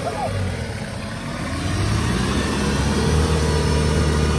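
Toyota BJ40 Land Cruiser's diesel engine running with the jeep deep in muddy water, the revs and loudness rising a little about two seconds in.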